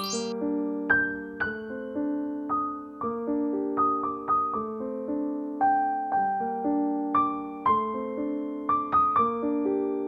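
Background piano music: a gentle melody of single struck notes over held lower notes, each note dying away after it is played.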